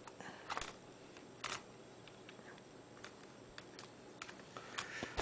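Faint clicks and short scrapes of small screws and a screwdriver against a netbook's plastic case as the screws go back in, the louder scrapes in the first second and a half, then scattered light ticks.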